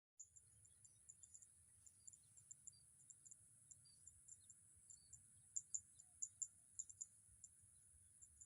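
Faint outdoor insect chorus: a steady high-pitched buzz with many short, high chirps scattered through it, a few louder ones in the middle.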